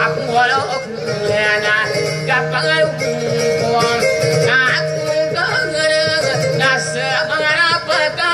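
Music with a singer: a wavering sung melody over steady held notes.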